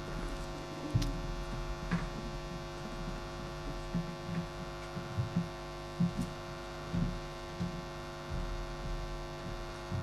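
Steady electrical mains hum with many overtones, from the recording or sound system, with scattered soft low knocks and a few faint clicks over it.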